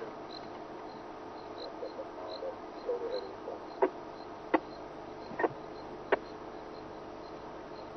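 Insects chirping steadily in the bush, a short high chirp repeating about twice a second over a faint steady hum. Four sharp clicks or snaps come in the middle, each about half a second to a second apart.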